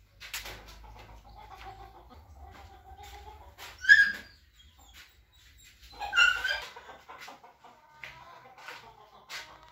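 Two high-pitched animal yelps about two seconds apart, the second one longer, over a faint low hum and scattered small knocks.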